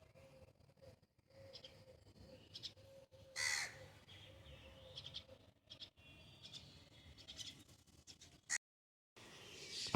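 A bird gives one loud, harsh call about three and a half seconds in, with fainter high chirps from other birds scattered around it. The sound cuts out completely for about half a second near the end.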